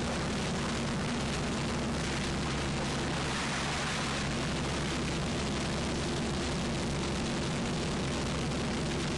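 Steady drone of a fishing trawler's engine under a continuous hiss.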